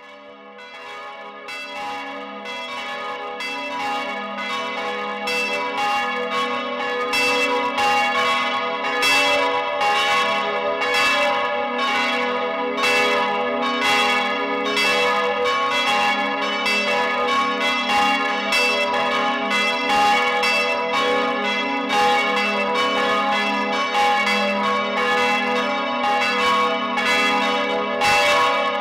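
Church bells ringing together, several bells swinging and striking in an overlapping, irregular rhythm, each stroke ringing on into the next. The peal swells in over the first few seconds, then goes on at a steady level.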